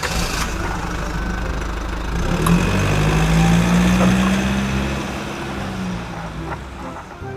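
A motor vehicle engine running. It swells to its loudest a few seconds in, then fades away, as when a vehicle drives past.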